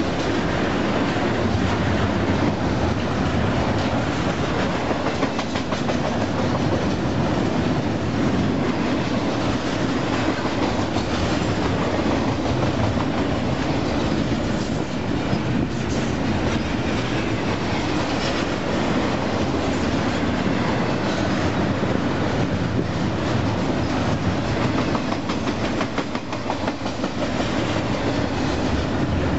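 Double-stack intermodal freight train's well cars rolling past close by: a steady rumble of steel wheels on the rails with a running clickety-clack of wheel clicks.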